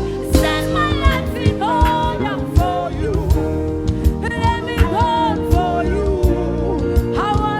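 Gospel music: a sung vocal line with melismatic runs over sustained chords and a steady drum beat.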